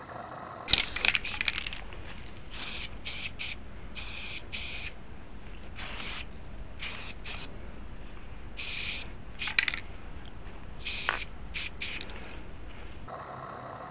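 Aerosol spray paint can spraying in short hissing bursts, over a dozen in all, with a low steady rumble underneath.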